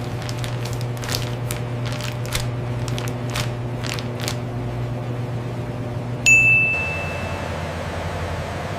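Steady low machinery hum in a food-processing plant, with a run of sharp clicks and taps, then a single loud electronic ding about six seconds in that rings out for about a second.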